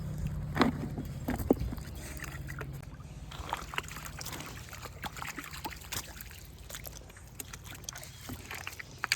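Footsteps sloshing through a shallow, rocky creek, with scattered knocks and clicks of stones underfoot and a couple of sharper knocks in the first two seconds. A low rumble runs under the first three seconds.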